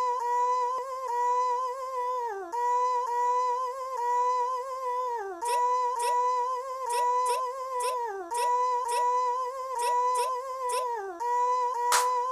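High, voice-like humming held on one note, sliding down in pitch at the end of each phrase and repeated over and over. Faint ticks come in from about halfway, and a single knock sounds near the end.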